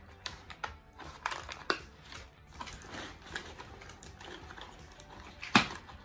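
Thin plastic grocery bags rustling and crackling as items and cardboard packaging are pulled out by hand, with scattered small clicks and a sharper knock about five and a half seconds in.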